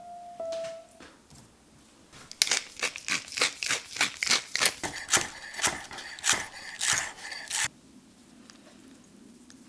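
Pepper mill grinding black pepper: a rapid series of grinding strokes, about three a second, starting a couple of seconds in and stopping abruptly after about five seconds.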